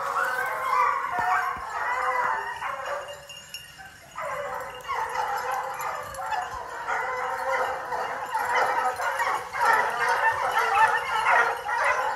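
A pack of hunting hounds giving tongue on a scent trail: many overlapping baying calls, fading briefly about three to four seconds in and then picking up again.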